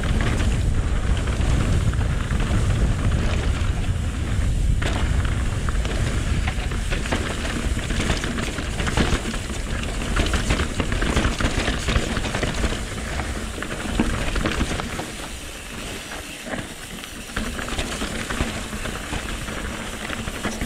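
Mountain bike descending a fast, rough dirt trail: wind buffets the microphone with a heavy low rumble while the tyres and bike clatter over rocks and roots with frequent sharp knocks. The wind rumble drops away about three-quarters of the way through, leaving the rattling.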